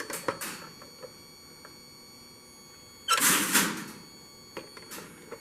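Number 5 Crossbar telephone switch equipment clattering: a burst of relay and crossbar-frame clatter lasting under a second about three seconds in, with scattered lighter relay clicks before and after. This is the switch responding to the phone going off-hook.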